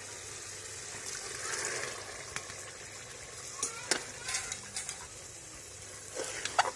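Soaked chickpeas tipped into hot, bubbling masala in an aluminium cooking pot, a soft rush as they go in. Then a long metal spoon stirs them through, knocking and scraping against the pot in scattered sharp clicks.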